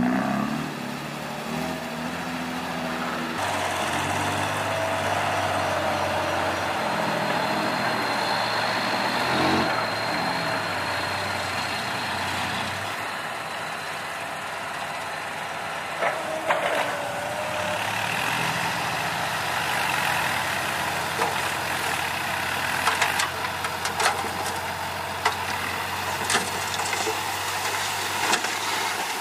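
Six-wheel diesel dump truck engine running and idling steadily, with a few sharp knocks in the second half.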